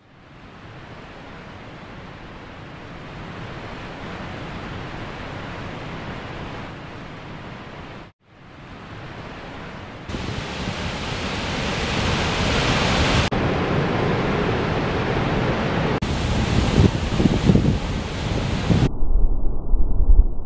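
Rushing water of a creek and waterfall, a steady noisy hiss. It cuts out briefly about eight seconds in, is louder from about ten seconds on, and changes abruptly in tone several times.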